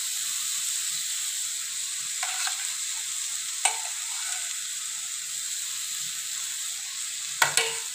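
Onion-tomato masala sizzling steadily in oil in a steel kadhai while spoonfuls of curd are dropped in. A few short metal clinks of a spoon against the pan come about two, four and seven and a half seconds in.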